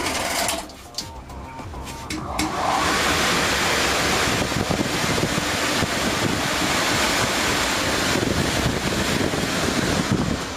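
A loud, steady rushing noise like strong wind or a blast of air swells in about two seconds in and holds, over soft background music.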